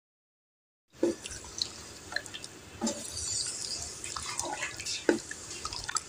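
Wooden spatula stirring chicken livers in thick masala in a metal karahi, with wet squelching, a light sizzle from the frying, and three sharp knocks of the spatula against the pan. The sound starts about a second in.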